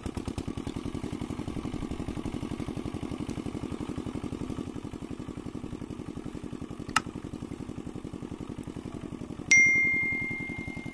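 A small engine running steadily with a rapid, even put-put pulse. About two-thirds of the way in there is a sharp click. Near the end a bright bell ding, the loudest sound, rings out for about a second; it is the click-and-bell sound effect of a subscribe-button animation.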